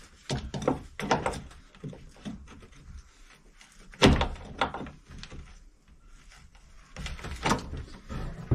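A hand tool knocking and clinking against a stuck nut and bolt on a steel bracket mount: a string of irregular sharp knocks, the loudest about four seconds in.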